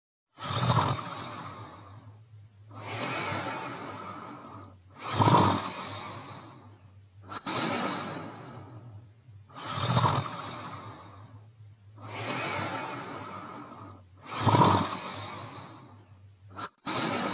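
Animated dog character snoring: four loud snoring breaths in, about every four and a half seconds, each followed by a softer breath out.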